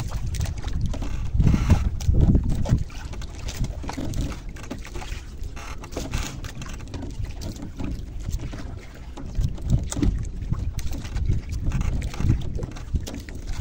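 Wind buffeting the microphone and water sloshing against the hull of a small boat at sea, a gusting low rumble that is loudest about two seconds in, with scattered small knocks.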